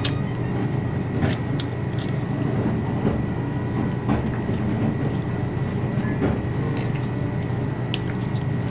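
Steady low hum of convenience-store room noise under eating sounds: chewing, and a few short sharp clicks of wooden chopsticks against a paper tteokbokki cup.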